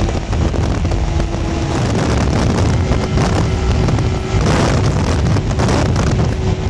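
Ski-Doo snowmobile engine running steadily under way, with wind rushing over the microphone.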